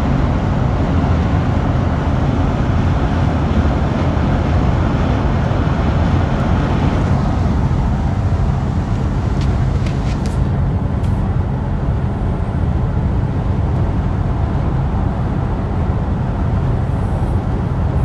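Steady road and engine noise of a car driving at highway speed, heard from inside the cabin, with a deep rumble underneath. The hiss in it fades about halfway through, leaving a duller rumble.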